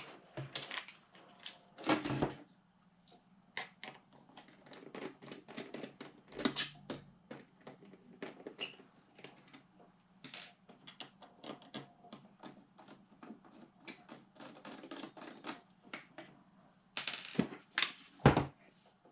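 Irregular clicks and taps of plastic and metal parts as an Xbox 360 disc drive is taken apart by hand, with a louder cluster of knocks near the end.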